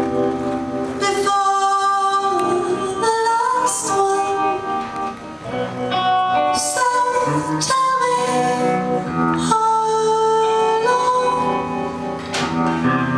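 A woman singing live into a microphone, holding long sung notes over instrumental accompaniment. The low accompaniment drops away for a few seconds after about the first second, leaving the voice nearly alone, then comes back in.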